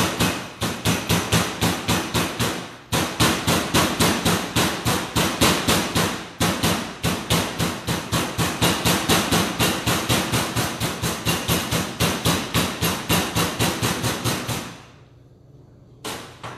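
Flat side of a meat mallet pounding a butterflied raw chicken breast on parchment paper to thin its thick ends: quick, even blows about three a second, with two short breaks. The blows stop near the end, and one last blow follows.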